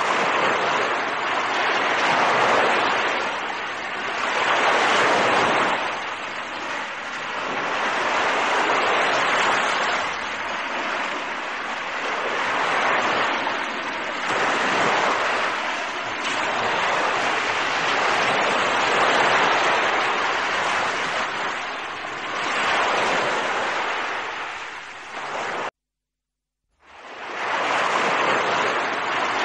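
Small waves washing in and out over a pebble beach, a hissing wash that swells and eases every few seconds. It cuts out suddenly for about a second near the end, then comes back.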